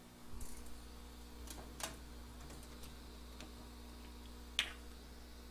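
A few scattered small clicks and taps of bench work, such as tools or a bottle being handled, with a soft thud just after the start and the sharpest click near the end, over a steady low electrical hum.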